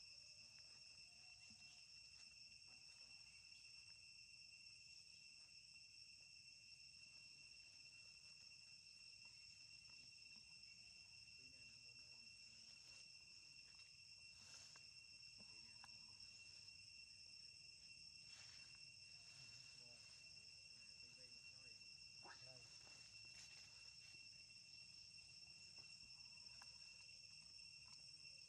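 Faint, steady high-pitched insect drone, with a few soft clicks.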